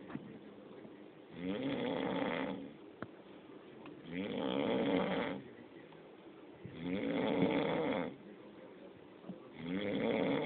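A sleeping man snoring, fairly lightly, in an even rhythm: four snores about 1.2 seconds long, one roughly every two and three-quarter seconds, the last running on past the end, with quiet breathing between them.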